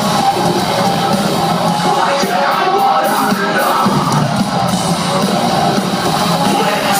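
Heavy metal band playing a song live at concert volume, with a yelled vocal over the band.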